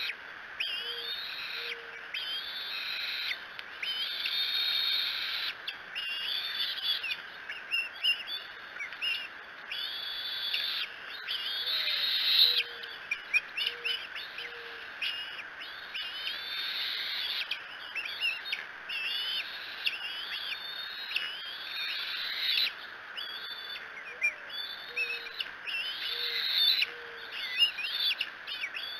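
Wild birds singing and calling steadily, with many overlapping high warbles and chirps. A low cooing phrase of four or five short notes, the first slightly higher than the rest, comes three times, about twelve seconds apart.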